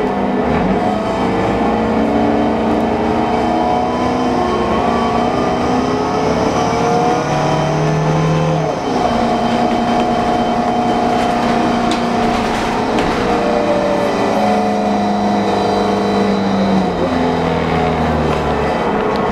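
Transit bus running, with a whining drivetrain: several steady tones that shift up and down in steps, and one tone that rises steadily about four to eight seconds in. This is the weird sound the bus is known for.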